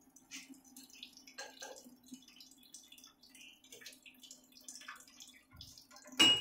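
Newly installed 4-bolt oil expeller running with a steady low hum, over scattered light ticks and drips. One sharp knock comes near the end.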